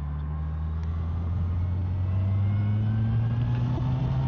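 Motorcycle engine running under way, its note slowly rising as it speeds up gently.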